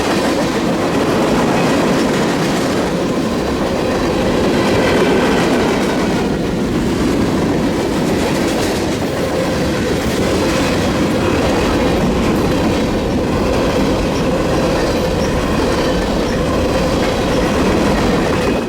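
Freight train rolling past, steel wheels clicking over the rail joints with a faint squeal of wheels on rail. The sound is steady and loud and cuts off abruptly at the end.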